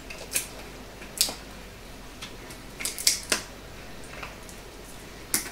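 A few sharp, light clicks and taps from handling a spice jar and its plastic shaker cap, with a short cluster of clicks about three seconds in.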